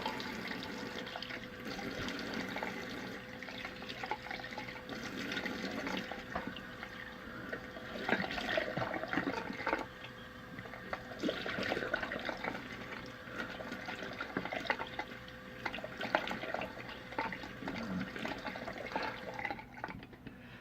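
Cold tap water splashed onto the face with the hands over a sink as a cold rinse after shaving: irregular splashes and drips, with the tap running.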